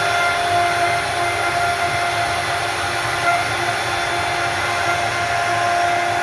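CNC wood router running, its spindle giving a loud, steady whine over a hiss as it carves wood.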